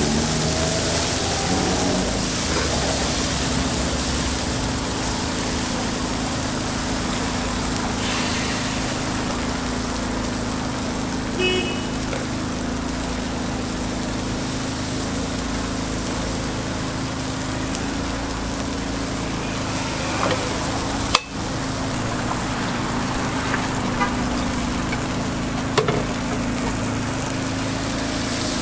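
Batter sizzling as it is poured onto a hot takoyaki griddle, over a steady low hum and street traffic noise. A few light clicks and taps come through now and then.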